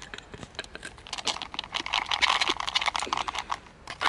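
Breadstick-and-chocolate-dip snack cup being handled, its peeled-back foil lid and plastic packaging crinkling in a rapid crackle as the breadsticks are pulled out of the dip.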